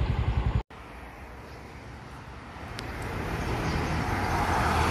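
Highway traffic: a low rumble that cuts off abruptly under a second in, then the tyre and engine noise of a passing car swelling as it approaches over the last two seconds.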